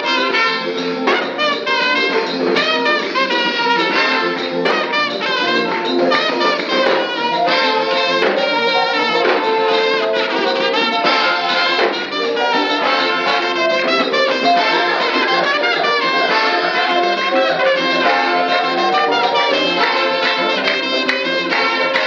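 A small brass group of several trumpets and a saxophone playing a praise tune together, loud and close to the microphone.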